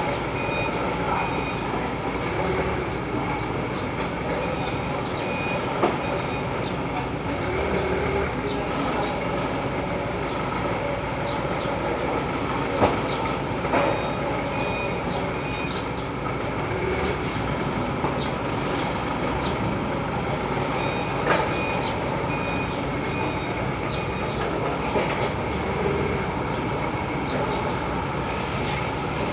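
Forklift engine running steadily as the truck manoeuvres, with its reversing beeper sounding in short runs of evenly spaced beeps near the start and again about two-thirds of the way through. A few sharp knocks stand out, the loudest about halfway through.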